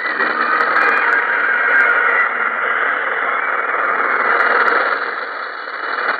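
Shortwave radio static and hiss from a portable receiver tuned to a distant 16-metre-band broadcast, with scattered crackles; the hiss dips briefly about five seconds in.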